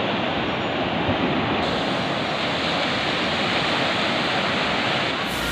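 Sea surf breaking and washing up a sandy beach, a steady rush of waves.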